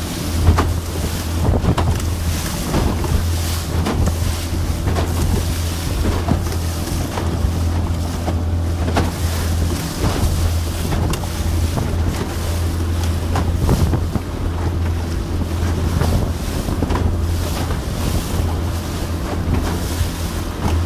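Small fiberglass motorboat, a Sioux Trucker 4.50, running through short, steep waves: a steady low motor drone under repeated irregular slaps of water against the hull, with wind buffeting the microphone.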